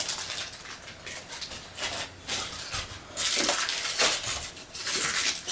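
Packaging being handled and unwrapped, rustling and crinkling in several short bursts, with light clicks from small model parts.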